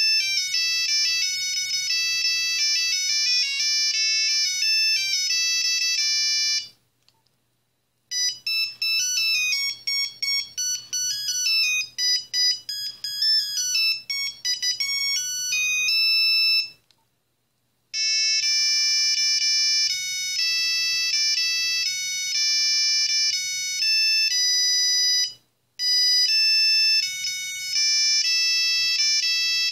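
Nokia 3310/3330 built-in monophonic ringtones playing one after another: high, beeping single-note melodies, with short silences between tunes about seven and seventeen seconds in.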